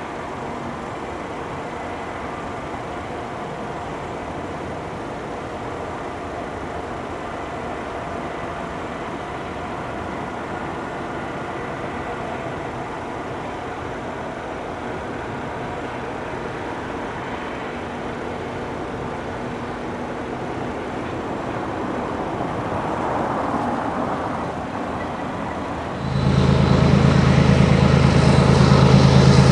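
Distant diesel freight locomotives running, a steady rumble with a faint engine drone. Near the end it cuts to a much louder, closer diesel locomotive engine with a strong low hum.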